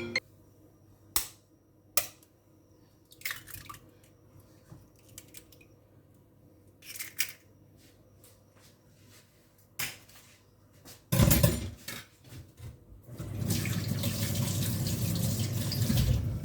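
Kitchen handling sounds: scattered clicks and knocks of utensils and dishes, then water running from a tap for about three seconds near the end.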